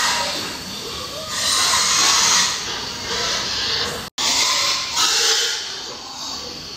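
Pigs squealing in harsh, noisy bursts about a second long, several times, with a brief cut-out of the sound about four seconds in.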